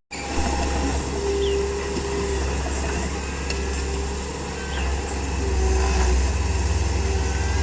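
Komatsu D31P crawler bulldozer working, its diesel engine a steady low drone that swells a little past the middle, with a short squeak recurring every second or so.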